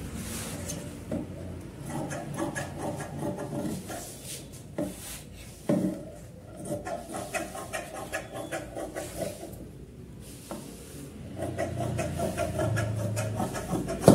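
Large tailor's scissors cutting through fabric laid on a wooden cutting table: runs of rapid, rhythmic snips with the blades scraping along the board, broken by short pauses. A sharper knock about six seconds in.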